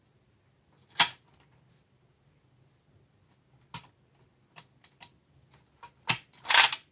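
Tin clockwork rocking-chair toy being rocked by hand on a wooden table, knocking and clicking irregularly: one sharp knock about a second in, a scatter of small clicks in the middle, and a louder clatter near the end.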